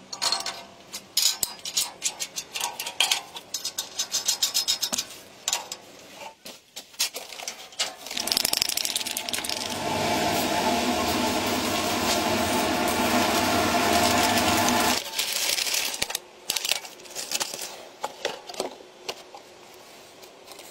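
Clicking and rattling of small hard parts, then a small electric motor runs steadily for about seven seconds and cuts off suddenly, followed by more clicks and rattles.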